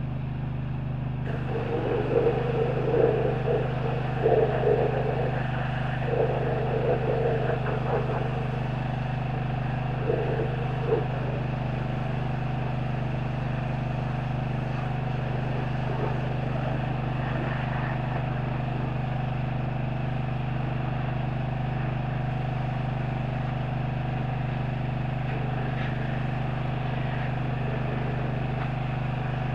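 Pressure-washer spray hissing against a semi-truck's cab over a steady engine hum. The spray starts about a second in, comes in uneven louder spells for the first ten seconds or so, then runs evenly.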